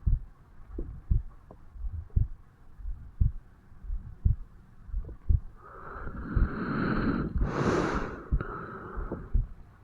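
Heartbeat recorded over the mitral valve area of an adult man's chest: low, regular thumps about once a second. From just before the middle, a long breath sound swells for about three seconds over the beats, then fades.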